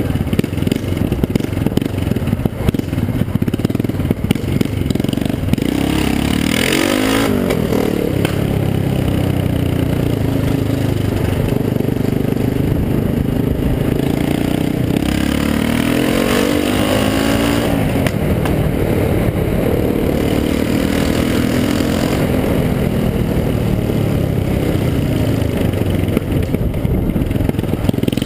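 Yamaha XT660R single-cylinder four-stroke engine running loud through one opened, unmuffled exhaust while riding, its note sweeping up and down twice as it revs.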